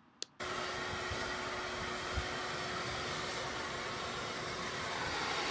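Vacuum cleaner running steadily, its hose sucking up dandelions from a lawn; the sound cuts in abruptly about half a second in.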